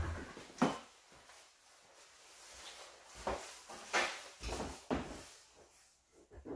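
Ski-Doo MX Z snowmobile engine shutting off and dying away in the first second, followed by several separate thumps and knocks as the rider steps off the sled and moves about.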